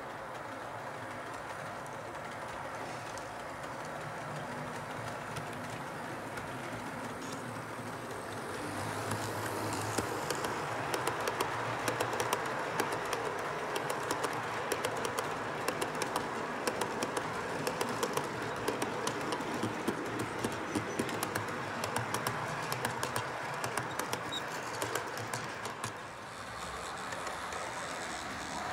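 HO-scale model train running on layout track: a steady motor hum as it approaches, then from about ten seconds in, rapid clicking of wagon wheels over the rail joints as hopper wagons pass close.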